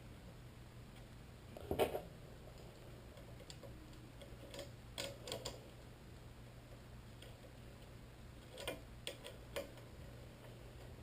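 Faint, scattered clicks and taps of the metal bolts of a scooter's SCS clamp being handled and threaded back in. The loudest comes about two seconds in, with small clusters in the middle and near the end, over a low steady hum.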